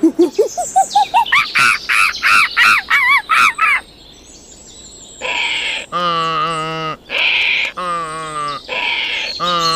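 Two different animal calls. First comes a rapid series of short calls that climb steadily in pitch for about four seconds. After a short pause comes a repeated call, about once a second, that alternates a harsh, hissy part with a lower, tonal part.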